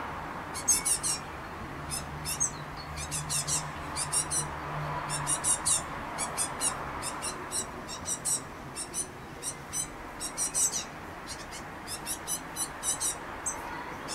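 Great tit fledglings begging: quick runs of thin, high-pitched calls, repeated over and over in short bursts.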